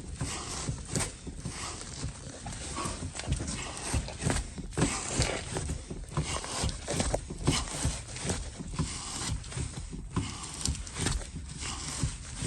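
Ford Mustang II brake pedal being pumped over and over, an uneven series of knocks and thumps about once a second, to test that the newly replaced rear brake line holds pressure without leaking.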